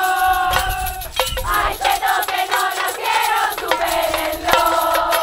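A group singing in unison in long held notes that change pitch every second or so, over rattles and sharp percussion taps.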